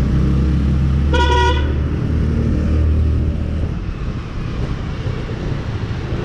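Motorcycle engine running at low speed while riding, a steady low rumble with road noise, and a short horn toot about a second in.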